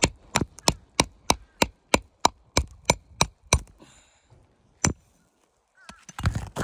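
Hammer striking a metal shingle-removal tool wedged under an asphalt shingle, driving it against a high-set roofing nail to pry it loose. About a dozen quick, even knocks, about three a second, then a pause and one last knock.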